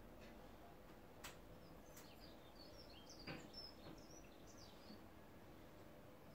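Near silence: quiet room tone with faint, short high chirps and a few soft clicks and one small knock from pans and utensils handled at the stove.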